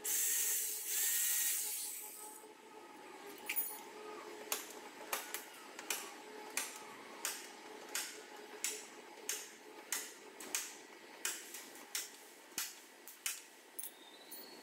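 Electric heat gun running, its fan motor humming steadily, with a loud rush of air in the first two seconds. From about three seconds in, sharp clicks come about twice a second over the hum.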